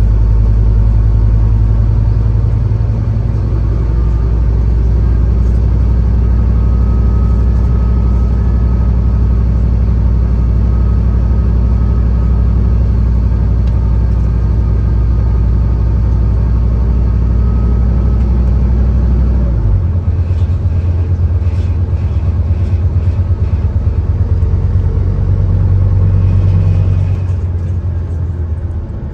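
Scania N230UD OmniCity bus's five-cylinder diesel engine running loud and steady under way, heard from on board. Its note shifts abruptly about two-thirds of the way through.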